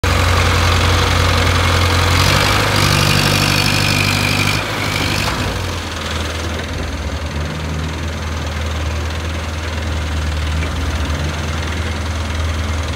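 Diesel engine of an ACE pick-and-carry hydra crane running with a steady low hum and some knock. It is louder over the first four to five seconds, with a wavering high whine on top, then settles to a quieter, even hum.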